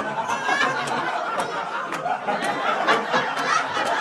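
Large audience laughing and cheering, with scattered clapping.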